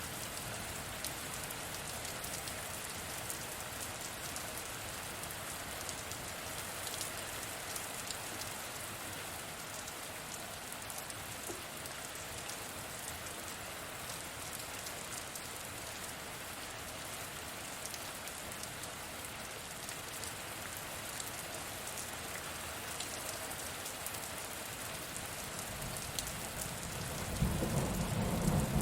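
Steady rain falling, with fine ticks of individual drops hitting a surface. Near the end a low rumble of thunder swells up.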